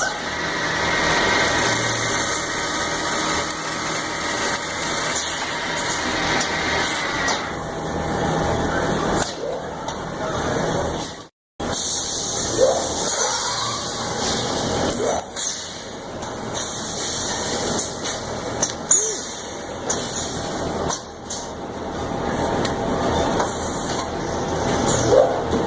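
Cookware factory floor noise: machinery running steadily with hum and scattered clatter. The sound cuts out completely for a moment about eleven seconds in.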